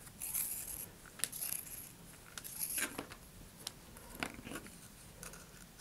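Quiet handling noises of cord being threaded through a thin cardboard centering ring on a paper motor tube: scattered light rustles and small clicks.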